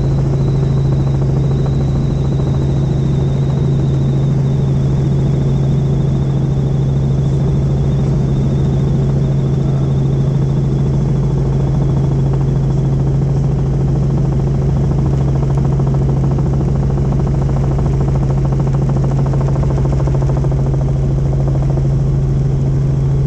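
Helicopter in flight: a loud, steady drone with a constant low hum. A faint high whine sits above it and fades out about halfway through.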